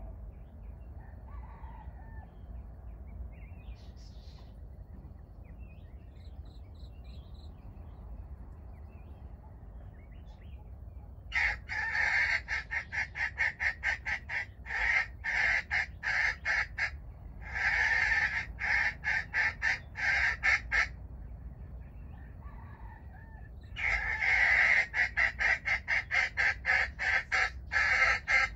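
Jungle fowl cackling: rapid runs of loud clucks, about three or four a second, in three bouts beginning about eleven seconds in, after a stretch of quiet forest ambience.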